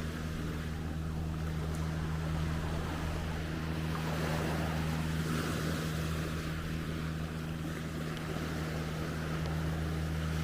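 A boat engine running steadily with a low, even hum, over the wash of waves.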